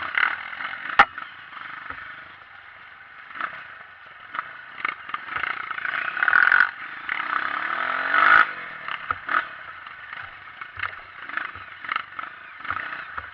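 Honda CRF 230 dirt bike being ridden on a trail: the engine runs under a steady rush, with frequent knocks and clatter from rough ground. The engine revs up over a few seconds past the middle and then drops off.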